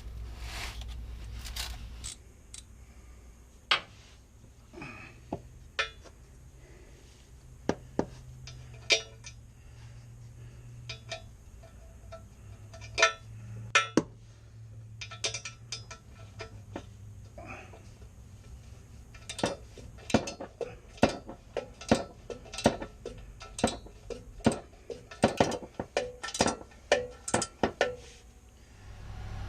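Metal tools and hardware clinking and knocking: irregular single clicks at first, then quicker clusters of clinks over the last third.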